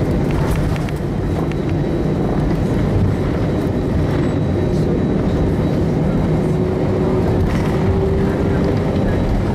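Airbus A319 jet engines heard from the cabin over the wing, running loud and steady as thrust comes up for takeoff. A faint tone slowly rises in pitch in the second half.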